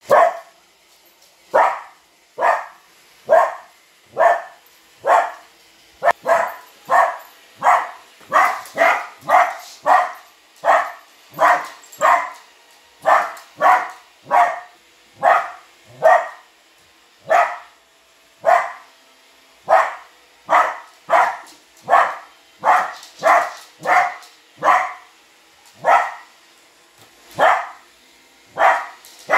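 A dog barking over and over at a Roomba robot vacuum, a long run of sharp barks at about one to two a second, with brief pauses between bunches.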